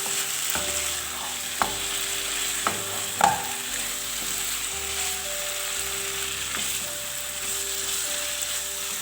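Paneer, potato and cauliflower curry sizzling in a pan on high flame as it is stirred, the last of its water cooking off while it roasts. A few sharp clicks of the spatula against the pan come in the first few seconds.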